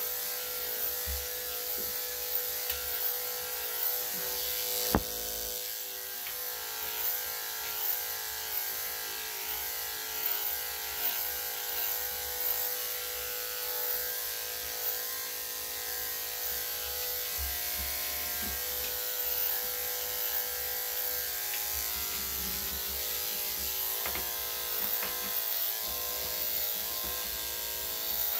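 Electric dog-grooming clippers fitted with a #3 3/4 blade running with a steady buzz as they are worked through a small dog's body coat. A single sharp click comes about five seconds in.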